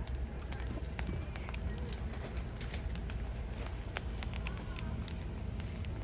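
Wood fire burning, crackling with irregular sharp pops and snaps over a low steady rumble.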